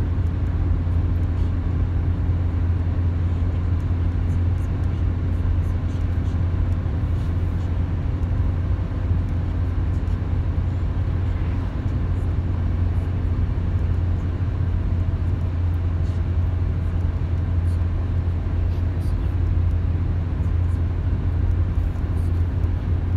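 Steady low road rumble of a car driving, heard from inside the cabin: tyre and engine noise on a wet road, even throughout.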